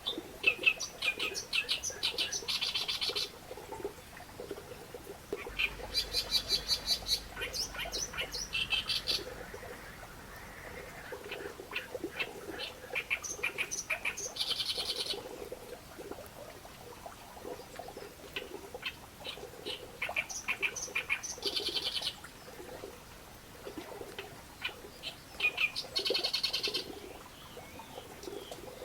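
Reed warbler singing its harsh, chattering song of rapidly repeated notes, in bouts of a few seconds with short pauses between them.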